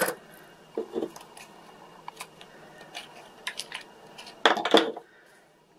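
Small hard plastic items being handled and set down on a workbench: scattered clicks and taps, with a louder double clatter about four and a half seconds in.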